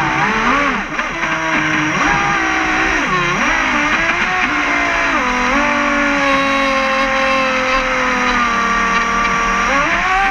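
Radio-controlled speedboat's motor running, heard up close from a camera on the boat, its pitch dipping and rising several times as the throttle is eased off and opened again.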